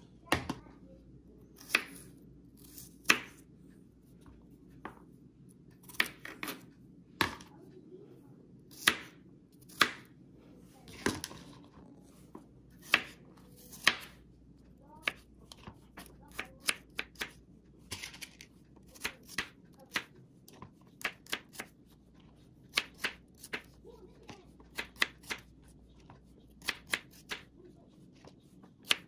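Chef's knife cutting garlic cloves in half on a bamboo cutting board: sharp, irregular knocks of the blade on the board, about a second apart at first and coming faster, in quick little groups, from about halfway through.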